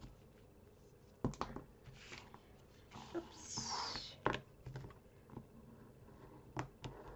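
Hands working paper and tape: a few light taps and paper rustles, with a swishing peel of the backing strip off double-sided score tape between about three and four seconds in, then paper being pressed down onto cardstock.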